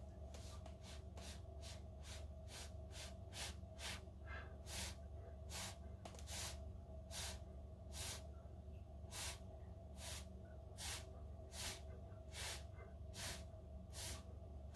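Short puffs of breath blown through a straw onto wet acrylic pour paint, spreading it into a bloom. The puffs repeat steadily, about three a second at first, then slowing to roughly one every three-quarters of a second.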